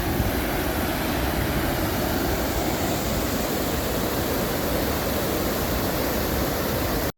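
Waterfall pouring: a steady, even rush of falling water that cuts off abruptly near the end.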